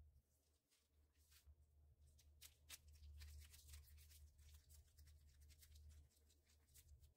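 Near silence: faint, irregular rustling and soft crackling of disposable plastic gloves as hands roll bulgur kibbeh dough into balls, over a low steady hum.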